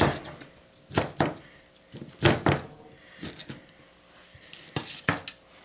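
Kitchen knife cutting grilled chicken breast into chunks on a plastic cutting board: irregular knocks as the blade strikes the board, about seven, some in quick pairs.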